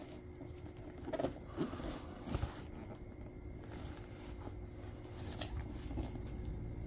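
Plastic shrink-wrap on a cardboard box crinkling as the box is handled and turned over in the hands, with a few soft knocks between about one and two and a half seconds in.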